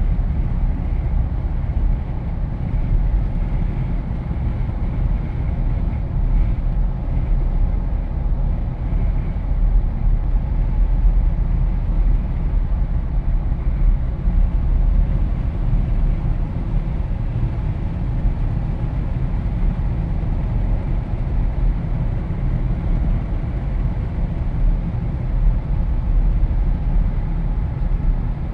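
Steady wind rush and low road rumble inside a Jeep Wrangler driving with the windows down, heaviest in the deep bass.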